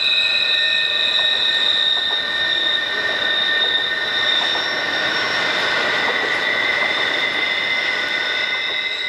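Freight cars rolling past close by, their steel wheels squealing in several steady high pitches over the rumble and clatter of the train. The strongest squeal fades about halfway through as a lower squealing pitch grows.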